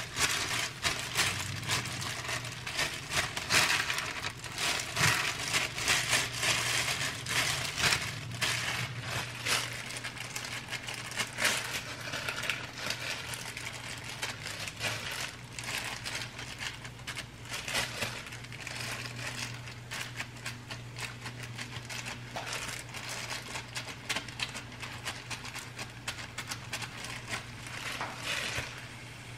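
Plastic-gloved hands rolling raw meatballs on parchment paper, the glove plastic and paper crinkling. The meatballs are then set into a frying pan of oil with light sizzling and crackling, and the rustling gets quieter in the second half.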